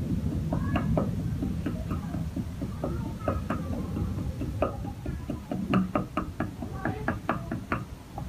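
Kitchen knife chopping on a round wooden cutting board: quick, uneven runs of sharp taps that come thickest in the second half, over a steady low rumble.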